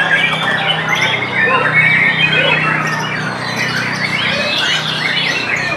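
White-rumped shama (murai batu) singing quick, varied phrases, overlapped by many other birds singing at once, over a steady low hum.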